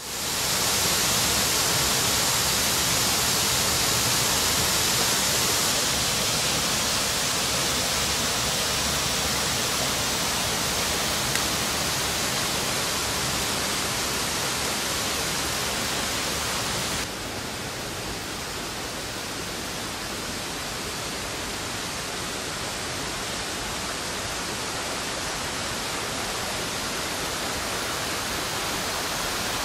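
Steady rush of fast-flowing water in a mountain torrent: a loud, even hiss with no distinct splashes. About halfway through it suddenly becomes a little quieter and duller.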